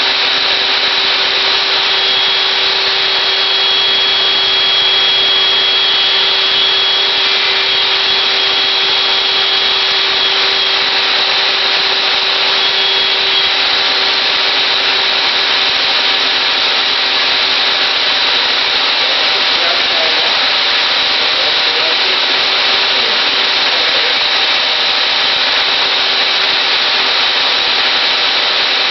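Table saw running steadily, a loud even whine and hiss while notches are cut in wooden hive top bars.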